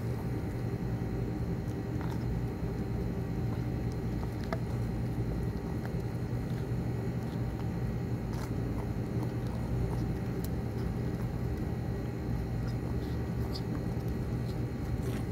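A steady low hum, with a few faint scattered clicks of two kittens chewing chicken and rice from a plastic plate.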